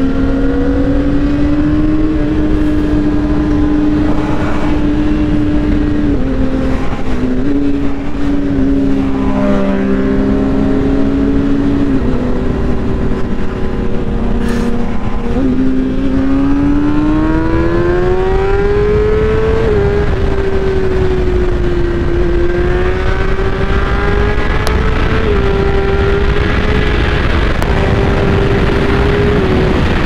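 Onboard sound of a KTM RC390 single-cylinder with a full-system exhaust running at highway speed, with wind rush. The engine note holds fairly steady with a few small steps, climbs for a few seconds past the halfway mark, then drops sharply at an upshift and settles.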